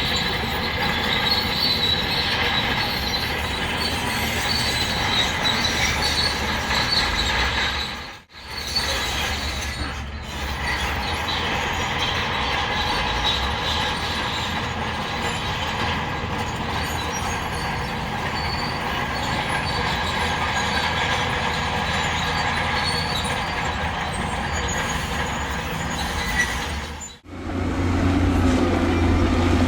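Crawler bulldozer working, its engine running under the high squeal and clatter of its steel tracks, broken off sharply twice; after the second break a deeper, steadier engine sound takes over.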